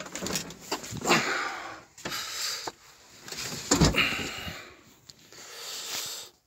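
Irregular rustling and breathy bursts of handling noise as someone climbs into a Belarus tractor's cab, with one heavy thump about four seconds in.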